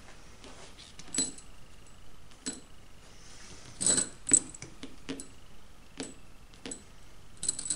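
Long steel nails clinking and tapping against one another as they are picked out of a loose pile and laid into bundles: a scatter of light metallic clinks, the loudest about four seconds in.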